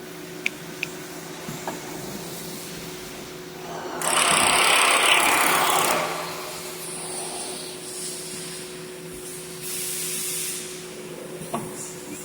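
A CNC machine running with a steady mechanical hum. A loud hissing rush comes about four seconds in and lasts about two seconds, and a fainter hiss follows near ten seconds, with a few sharp clicks.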